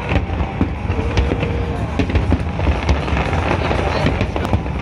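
Aerial fireworks bursting and crackling, with many sharp pops over a continuous low rumble of booms.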